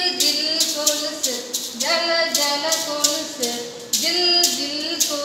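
A woman singing a Tamil children's rhyme unaccompanied, in long held notes with short breaks between phrases.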